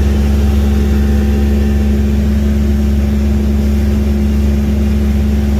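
Fishing boat's engine running steadily while under way, a constant low drone with no change in speed.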